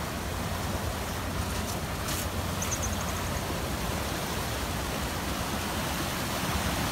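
Muddy floodwater rushing down a concrete-block drainage channel: a steady, even rush of water.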